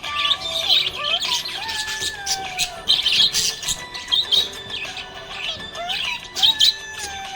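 Budgerigars chirping and chattering in many quick, high chirps, with music playing underneath.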